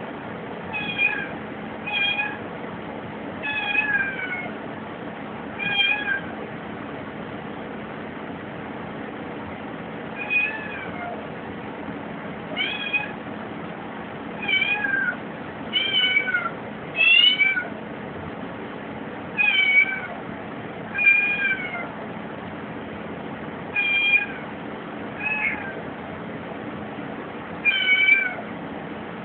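Kitten meowing over and over at a closed door, wanting out: about fourteen short, high cries, spaced from a second to several seconds apart.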